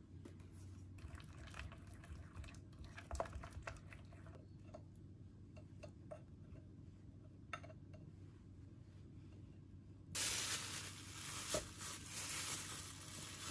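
Quiet kitchen handling sounds: a wooden spoon stirring chili sauce in a glass bowl, then light clicks as strips of pear are laid on a plate. About ten seconds in comes the loudest part, a few seconds of crinkling from a plastic glove as a mound of raw beef is set on the plate.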